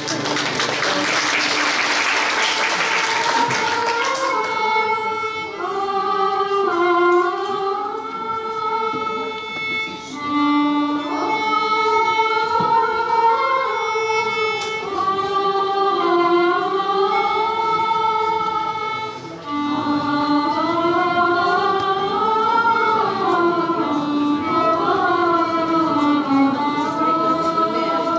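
Mixed choir singing one slow, gliding melody line, accompanied by violin, oud and accordion. A rush of noise fills the first few seconds before the singing comes in.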